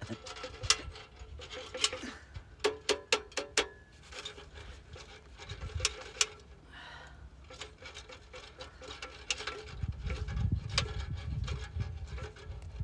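Metal clinks, taps and rattles from a sheet-metal cylinder stove being handled, its lid and handles knocking, with a quick run of about six clicks about three seconds in. A low rumble comes in near the end.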